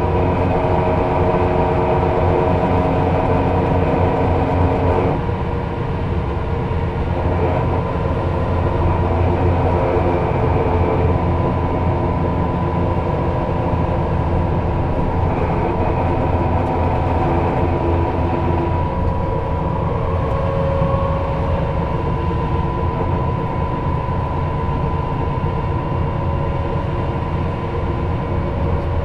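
Viseon LDD 14 double-decker coach under way, its engine running under a steady low drone of road noise. The engine note shifts a few times, about five seconds in, again near eight seconds, and near nineteen seconds.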